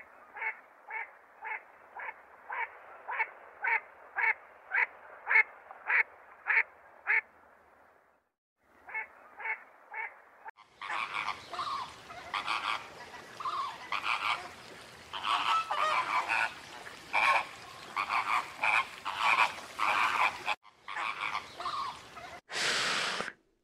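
A duck calling in a steady series of short, evenly spaced calls, nearly two a second, with a short break before the calls resume. About eleven seconds in, a flock of flamingos starts honking and calling over one another, and a brief loud rush of noise comes near the end.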